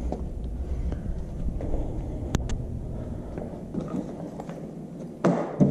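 Light knocks and clicks of items being handled over a low steady rumble, with two louder knocks near the end.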